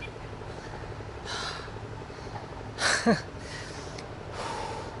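A man breathing hard in a few loud breaths, the loudest one about three seconds in, a voiced sigh falling in pitch. He is winded from walking up a steep hill.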